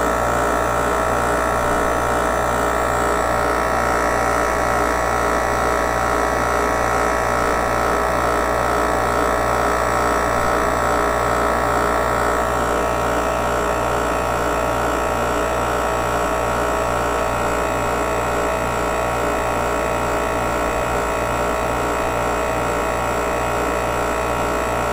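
Mastercool 69110 A/C refrigerant recovery machine running steadily, its compressor pulling refrigerant out of a car's A/C system into a recovery tank, with an even pulsing hum.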